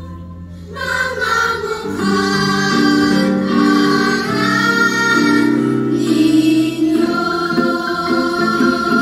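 A choir singing with musical accompaniment, in long held notes that change pitch about once a second. There is a brief lull at the very start before the voices come back in.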